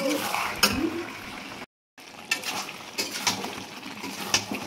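Meat pieces sizzling in a metal kadai while a flat spatula stirs them, with clicks and scrapes of the spatula against the pan. This is the meat being fried down in spices. The sound cuts out completely for a moment about two seconds in.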